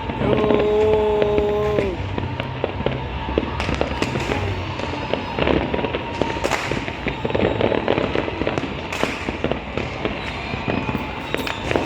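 Many fireworks going off across a city: a continuous crackle and scattered bangs. A steady pitched tone, like a horn, is held for about a second and a half near the start.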